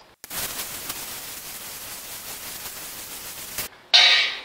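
Steady hiss of a gas torch heating a nut welded onto a seized broken bolt, starting suddenly and cutting off suddenly after about three and a half seconds. A brief loud sound follows near the end.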